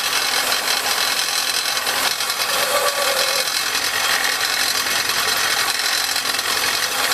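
Bench belt sander running steadily while PVC pipe ends are pressed onto the belt, a dry, even grinding rasp as the pipe ends are squared and smoothed.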